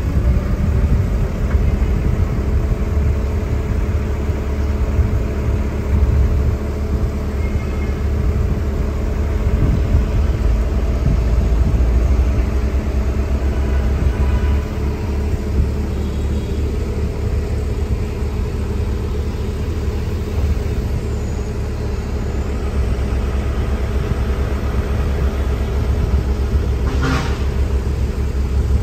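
Excavator's engine running steadily with a low, even engine note, with a brief sharp sound near the end.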